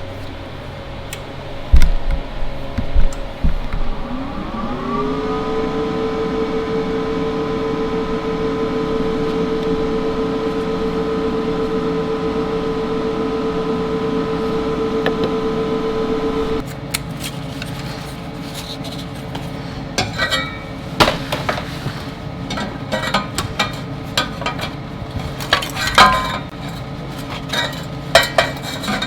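A handheld electric power tool spins up about four seconds in, runs at a steady pitch for some twelve seconds while cleaning the exhaust pipe ends for welding, and stops abruptly. After it come scattered metallic clinks and knocks.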